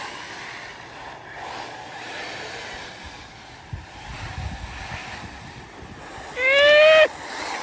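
Arrma Typhon 6S RC buggies racing on a dirt track, their electric motors and tyres heard as a steady noisy rush. A brief high-pitched tone cuts in about six and a half seconds in and is the loudest sound.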